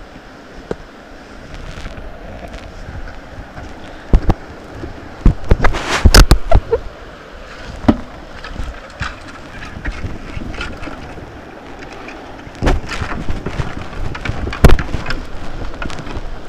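Kayak on white water: river water rushing and splashing around the hull, with wind buffeting the microphone. Sharp knocks and splashes, likely paddle strokes and water hitting the boat, come in a loud cluster from about five to seven seconds in and again near the end.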